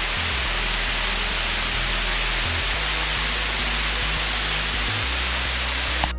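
Steady rushing of a waterfall, a dense even roar with no pauses, broken by a momentary dropout right at the end.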